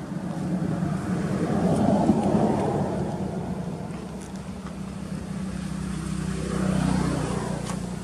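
Engine noise from passing motor traffic: a steady low hum with a rumble that swells and fades twice, about two seconds in and again near the end.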